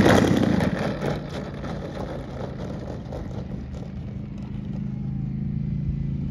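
Gas engine of a large aerobatic RC airplane, loud at first and throttled back within about a second to a steady idle as the plane rolls out after landing.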